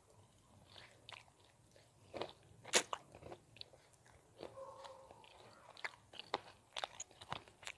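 Mouth chewing food close to the microphone: irregular wet clicks and crunches, the loudest crunch a little under three seconds in.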